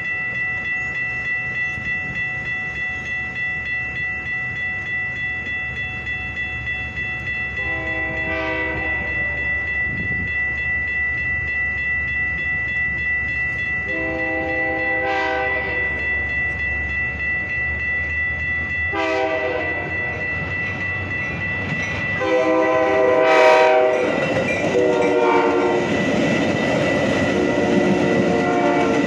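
A Metra commuter train approaching a grade crossing sounds its horn in several blasts, the later ones louder and running together, and then passes with rushing wheel and rail noise near the end. Under it a railroad crossing bell rings steadily.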